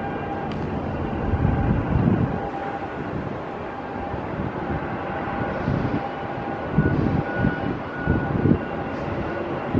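Wind buffeting the microphone in irregular gusts, strongest about a second and a half in and again around seven to eight seconds, over a steady low rumble.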